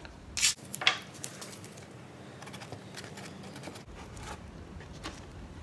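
Blue masking tape being pulled off the roll and torn, with two short ripping sounds about half a second and a second in, then fainter rustling as it is pressed onto the hull.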